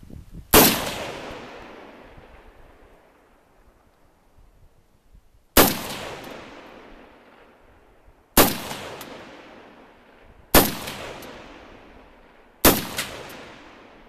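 Five single pistol shots, the first alone and the other four about two seconds apart. Each crack is followed by a long echo that dies away over a second or two from the surrounding hills.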